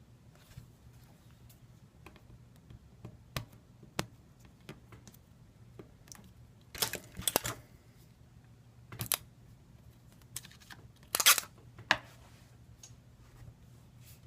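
Scattered small clicks and taps from handling phone parts and tools during a smartphone screen repair, in a few quick clusters about 7, 9 and 11 to 12 seconds in, over a low steady hum.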